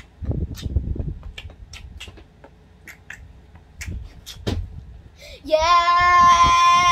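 Low bumps and scattered small clicks as a young girl dances. About five and a half seconds in she starts singing one long held note.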